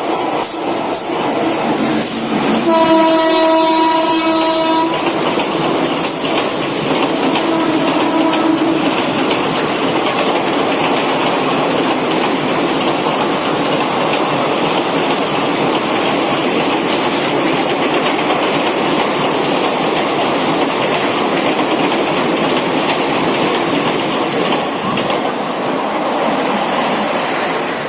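WCAM-3 electric locomotive horn sounding a loud blast of about two seconds, beginning about three seconds in, and a shorter, fainter blast a few seconds later. Behind and after the horn, a passing express train's wheels rumble and clatter steadily over the track.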